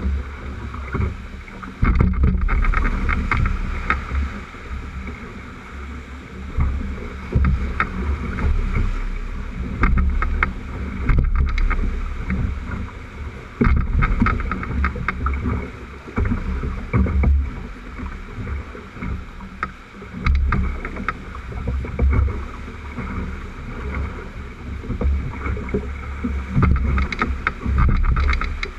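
Whitewater rapids rushing around a wooden drift boat, with frequent sharp splashes and knocks of waves against the hull. Gusty low rumbles of wind buffet the microphone.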